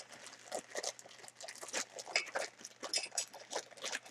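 Thin clear plastic bag crinkling and rustling in the hands as it is opened, a run of short, irregular crackles.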